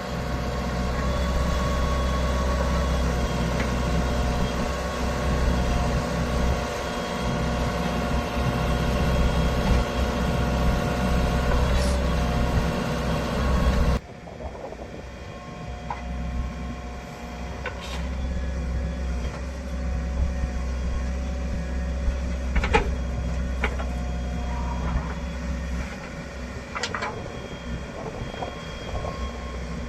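JCB backhoe loader's diesel engine running steadily. About halfway the sound cuts abruptly to a quieter stretch of the engine running, with a few sharp metallic knocks.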